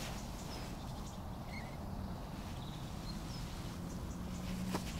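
Quiet pondside ambience with a few faint, short bird chirps and a low steady hum that grows a little stronger toward the end, closed by a single sharp click.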